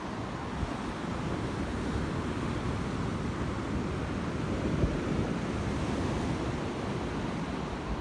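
Ocean surf breaking and washing onto the beach in a steady rush, with wind buffeting the microphone.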